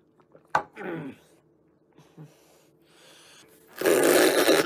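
A man's wordless vocal sound about half a second in, sliding down in pitch. Near the end comes a loud, breathy hiss as he breathes out close to the microphone with his tongue out.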